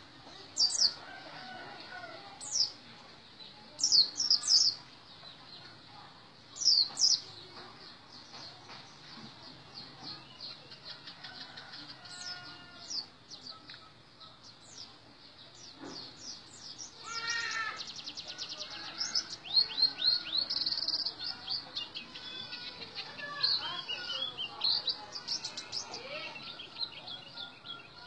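White-eye (pleci) singing: loud, sharp, high-pitched chirps in separate bursts, then faster runs of rapid notes from about halfway through.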